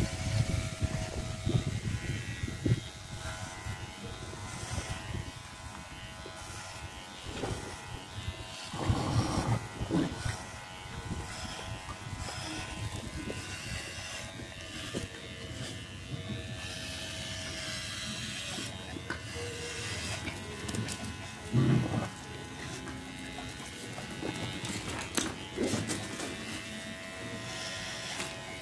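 Electric pet hair clippers running with a steady hum while trimming a dog's long fur. A few brief, louder handling noises break in, the loudest about three-quarters of the way through.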